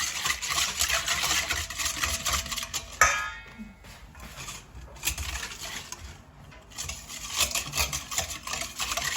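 A spoon stirring a yeast, sugar and milk mixture in a bowl, with scraping and small clicks, and one sharp ringing clink of the utensil on the bowl about three seconds in; the stirring eases off, then picks up again near the end.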